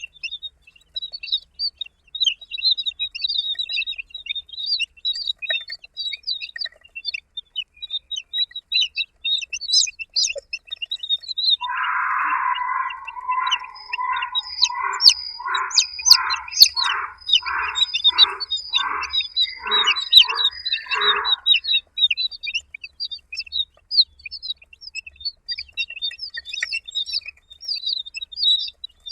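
Baby chicks peeping, a steady scatter of many short high chirps. Midway, a lower call repeats about once a second for some ten seconds.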